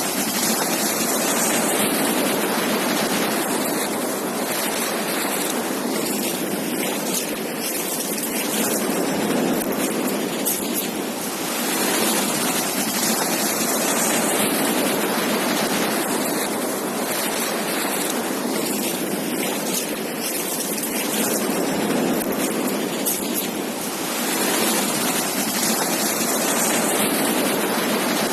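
Ocean surf on a beach: a continuous hiss of waves breaking and washing in, swelling and easing every few seconds.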